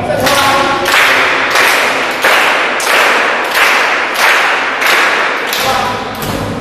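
A group of people clapping together in a steady beat, about three claps every two seconds, each clap smeared by the room's echo. Voices come in near the end.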